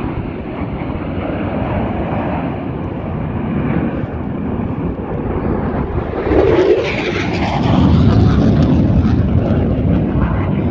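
Jet aircraft flying a display pass, a continuous loud engine rumble that swells about six seconds in and is loudest around eight seconds as it goes by.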